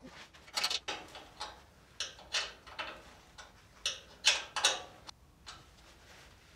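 Irregular metallic clicks and short scrapes of hand tools and fittings being worked on a brake pipe and its P-clip fixings, about a dozen in five seconds, loudest around four seconds in.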